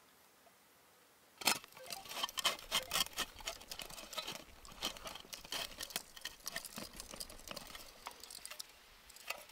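A pointed tool scratching and twisting into a small wooden board to mark a hole in its centre: an irregular run of small clicks and scrapes that starts about a second and a half in.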